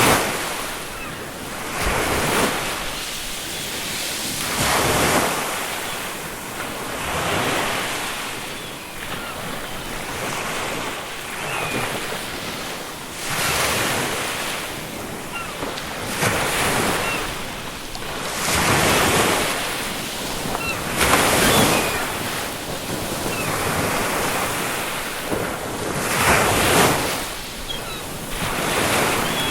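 Ocean surf breaking on a shore, a fresh wave washing in every two to three seconds, with faint seagull calls now and then.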